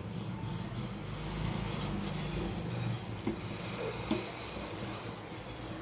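Sugar water boiling in a small aluminium pan over a gas burner: a steady bubbling hiss, with two faint ticks a little past the middle.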